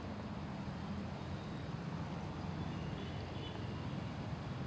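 Motor traffic of auto-rickshaws and cars driving slowly through a flooded road: a steady low engine rumble with water churning around the wheels.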